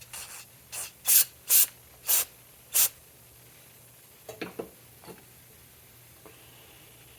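Compressed-air blow gun fired in six short blasts, each a sharp hiss, blowing out the clogged Vespa fuel petcock and tank line. A few light clicks and knocks follow about four to five seconds in.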